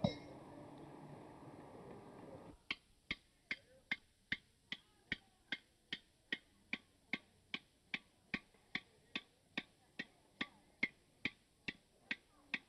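A blacksmith's hand hammer striking a red-hot iron bar, about two and a half even blows a second with a short metallic ring on each. The hammering begins a couple of seconds in and goes on for some two dozen blows.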